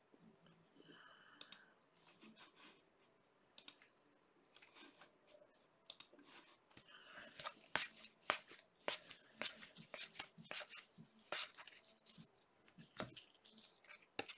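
Trading cards being handled and flipped through, faintly: a run of quick crisp snaps and rustles, densest through the middle.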